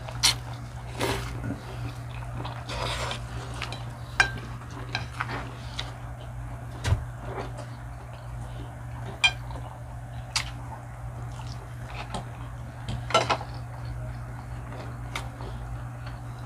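Cutlery clinking and scraping against a plate while eating, with sharp clicks every second or two over a steady low hum.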